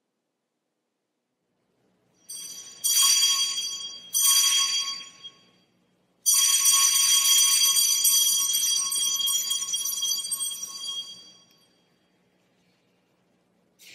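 Small brass handbell rung by hand: two short rings about a second apart, then a continuous ringing for about five seconds that slowly fades away.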